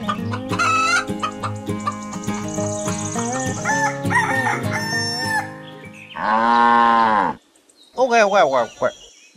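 Light background music, then a loud rooster crow lasting about a second, about six seconds in. Near the end, a short cartoon-style voice sound effect.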